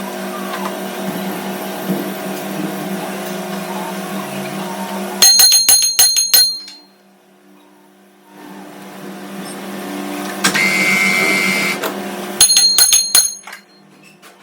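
Metal lathe machinery humming steadily. About five seconds in and again about twelve seconds in come quick runs of sharp metallic clinks, each ringing with the same high tone, as a steel part is struck or handled.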